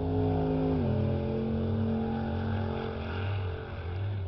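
Ute's engine held at high revs during a burnout, the rear tyres spinning and smoking; the revs step down about a second in, hold steady, then fade away near the end.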